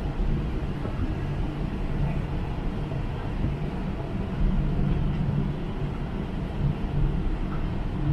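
Steady low rumble of a cruise ship's engines, with a hum running through it.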